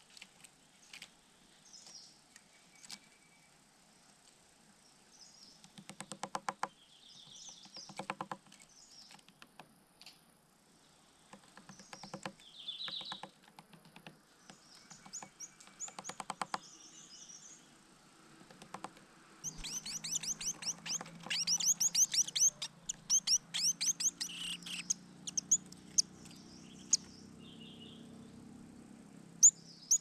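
Chestnut-vented nuthatch hammering at the mud and wood of its nest hole with its bill, in several short bursts of rapid taps. High bird chirps come throughout, with a dense run of fast, high chirps about two-thirds of the way through.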